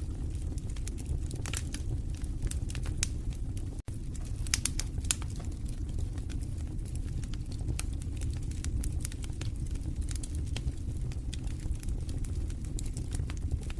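Wood fire in a fireplace crackling, with irregular sharp pops and snaps over a steady low rumble of the burning fire. The sound cuts out for an instant about four seconds in.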